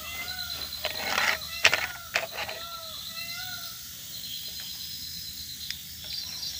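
Repeated short rising-then-falling animal calls over a steady, high pulsing insect trill, with a few sharp clicks and a rustle about one to two seconds in.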